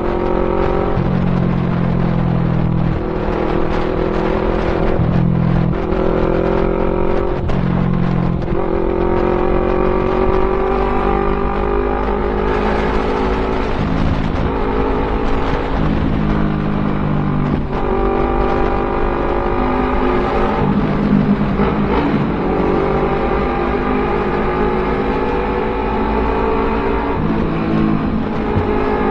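Yamaha MT-03 motorcycle engine through a full-system aftermarket exhaust, accelerating hard with the pitch climbing and then dropping back at each gear change, over and over.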